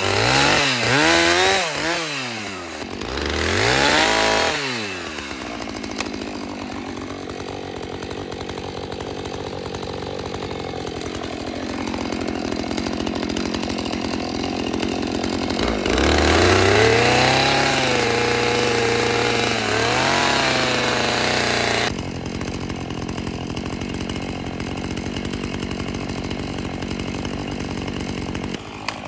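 Husqvarna two-stroke chainsaw revving up and down three times while cutting spruce branches, then idling steadily. About halfway through it revs again for several seconds, dipping in pitch under load in a cut, then drops back to idle.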